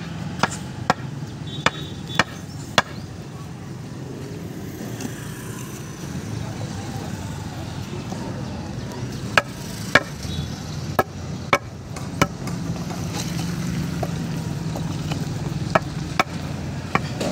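Sharp knocks of interlocking concrete paver blocks being set down and pushed against one another on a sand bed. They come in scattered groups over a steady low rumble.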